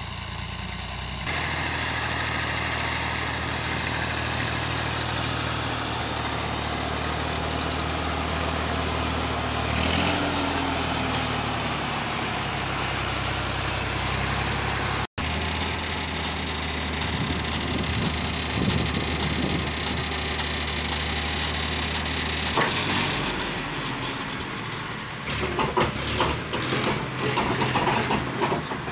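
Massey Ferguson 240 tractor's three-cylinder diesel engine running steadily under load while pulling a heavily loaded trolley, stepping up in revs about a second in. Near the end, the engine is joined by irregular clattering as the raised tipping trolley dumps its load of soil.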